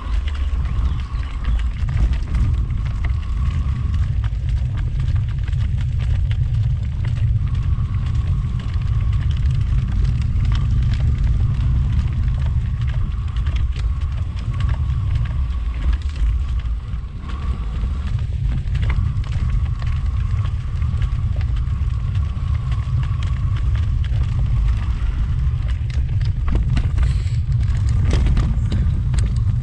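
Steady low rumble of wind buffeting the camera microphone as a mountain bike rides a rough dirt forest trail, with scattered knocks and rattles from the bike over bumps.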